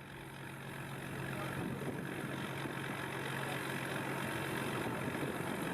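Fishing vessel's engine running steadily, a low drone that slowly grows louder.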